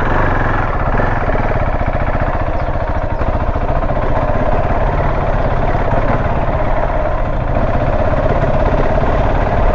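Motorcycle engine running steadily, its firing pulses dense and even throughout.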